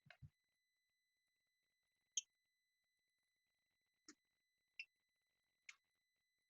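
Near silence with a faint steady high-pitched tone and four short, light clicks, the sharpest about two seconds in.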